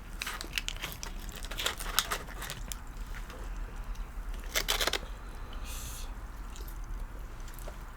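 Eating sounds close to the microphone: chewing and small crunches of KFC fried chicken and fries, with scattered sharp clicks and a brief hiss about six seconds in.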